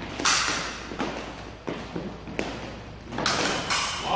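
Fencing bout footwork and blade contact: several sharp stamps and clacks that echo in a large hall.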